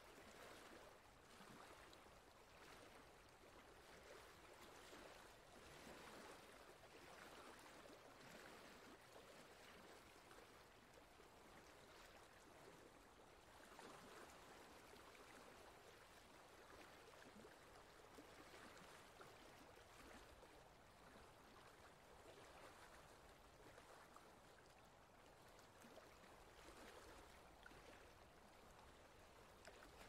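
Shallow forest stream running over rocks and boulders: a faint, steady rush of water with gentle swells.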